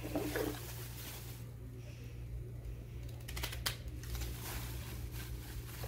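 Kitchen knife cutting into a peeled cassava root held in the hand: a few crisp clicks and cracks, bunched about three and a half seconds in, over a steady low hum.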